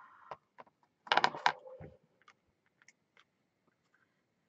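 A small paper-and-cardboard gift box being handled and opened: a louder burst of rustling about a second in, then scattered small clicks and paper rustles.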